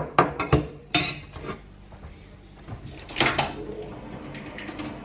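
A spoon clinking and scraping against a plastic food container and a bowl, several quick knocks in the first second and a half. A little after three seconds comes a louder clatter as the wall-mounted microwave's door is opened.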